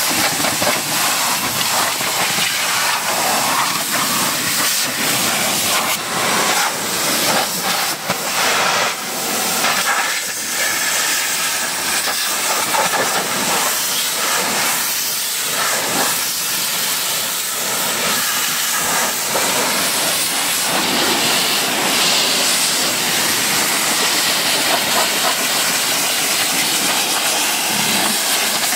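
High-pressure water jet from a pressure-washer lance hissing steadily as it sprays a car's bodywork and wheel. The spray's sound shifts unevenly in the middle as the jet plays over the wheel.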